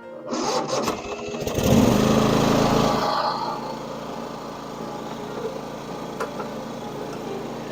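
Old riding lawn mower's engine starting up, rising in pitch to its loudest about two seconds in, then settling and running steadily.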